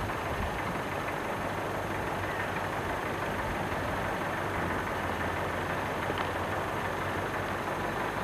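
A steady low hum under an even background hiss, unchanging throughout.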